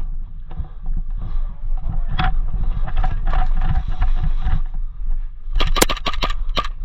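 Heavy rumble of handling and movement on a body-worn camera microphone. Near the end comes a quick run of about half a dozen sharp cracks in about a second, the sound of airsoft shots being fired close by.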